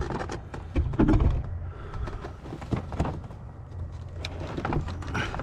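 Scattered clicks and light knocks of hands working on a pickup's interior door panel, unhooking a clipped part.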